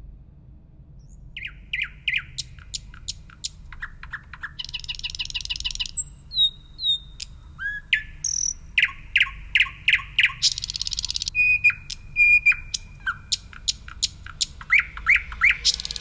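A nightingale singing a varied song of quick repeated notes, trills, clear whistles and buzzy rattles, starting about a second in, over a low steady hum.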